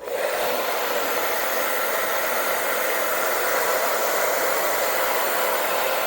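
Handheld hair dryer running steadily with an even blowing hiss, switching on abruptly at the start, used to heat a vinyl logo decal and soften its adhesive for peeling.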